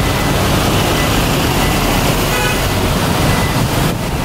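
Dense street traffic heard from a moving car, a steady rumble of engines and tyres, with a short horn toot about two and a half seconds in.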